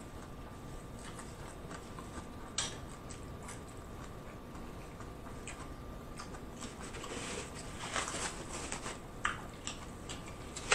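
Close-miked mouth chewing with scattered small wet clicks, one sharper click a few seconds in. From about seven seconds in, denser clicking and rustling as the food and containers on the table are handled. A faint steady thin tone runs underneath.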